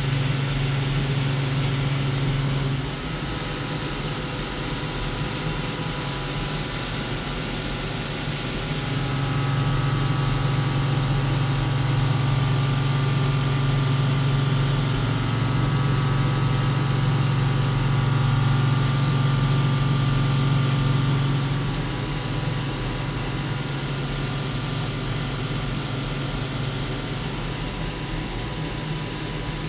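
CNC mill's spindle and end mill cutting Monel K500 under flood coolant: a steady machine noise with a constant high whine and a low hum. The low hum drops back at about 3 seconds, comes back louder at about 9 seconds, and eases again at about 21 seconds. The cut runs smoothly, the machine sounding perfect.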